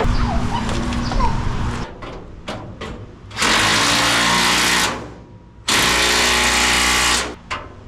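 Power drill running in two bursts of about a second and a half each, each starting and stopping abruptly. A lower steady hum comes before them in the first two seconds.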